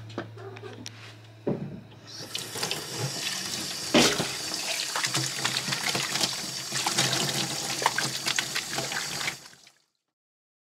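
Kitchen tap running into a stainless steel sink while a mug and cat food bowls are washed under it, with dishes clinking and knocking against the sink and one loud knock about four seconds in. The water stops suddenly near the end.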